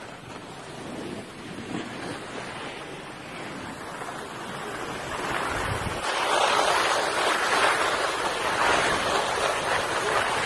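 Skis sliding and scraping over packed snow, a steady hiss that gets louder about six seconds in.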